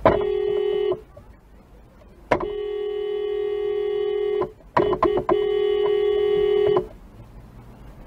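Car horn sounding in three goes: a blast of about a second, a longer blast of about two seconds, then a few quick toots running into a last blast of about a second and a half.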